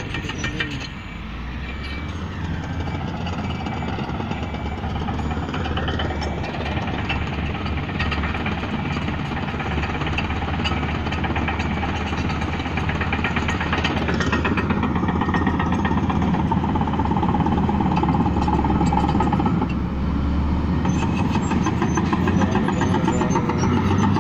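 Bulldozer's diesel engine running steadily under work, its pitch sweeping up and down a few times as the load changes, with a continuous fast rattle.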